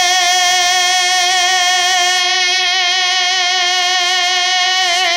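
A man's voice holding one long, steady sung note into a microphone during a naat recitation, unaccompanied; the pitch slides down at the very end.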